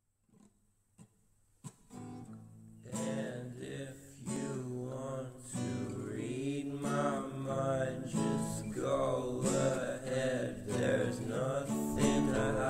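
Background music: acoustic guitar, a few single plucked notes at first, then fuller strummed playing from about three seconds in.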